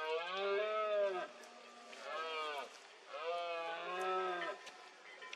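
Red deer stag roaring in the rut: three deep bellows, a long one, a short one and another long one, each rising and falling in pitch.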